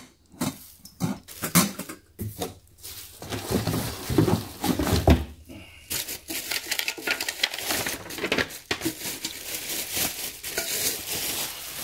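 Plastic packaging crinkling and cardboard rustling as stainless steel cookware is worked out of its box, with occasional light clinks of metal.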